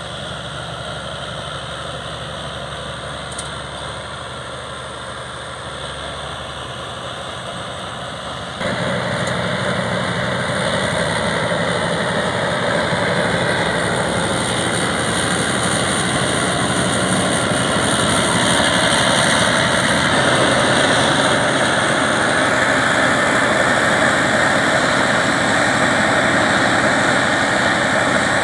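Komatsu crawler bulldozer's diesel engine running steadily at work, getting abruptly louder about eight and a half seconds in.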